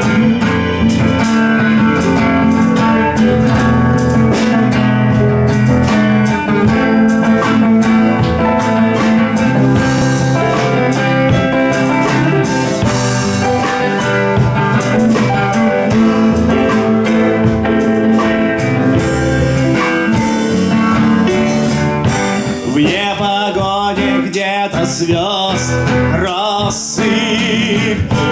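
Live band playing an instrumental section: hollow-body electric guitar, keyboard and drum kit with cymbals. In the last few seconds a high lead line with a wavering pitch comes in over the band.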